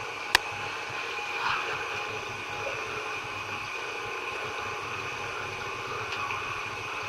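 Steady mechanical hum with hiss, with one sharp click about a third of a second in.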